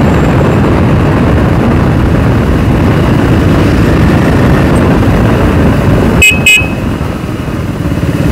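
Riding noise from a helmet-mounted phone on a moving motorcycle: a steady low rumble of wind and engine. About six seconds in come two quick, loud horn beeps, and after them the rumble eases for a moment before building again.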